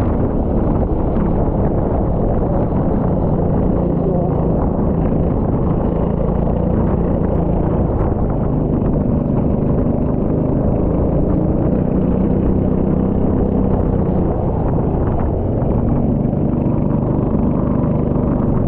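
Rental go-kart engine running continuously under load, its pitch rising and falling with the throttle, with a brief drop in revs near the end.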